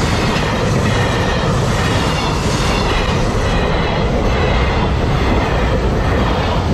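Freight train hauled by a JR Freight EF210 electric locomotive passing close by, its wagons rolling over the rails with a steady loud rumble and clickety-clack of wheels on rail joints.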